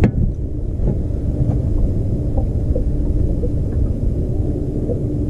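Low rumble of wind buffeting the microphone, with a faint steady hum under it and a single sharp knock right at the start.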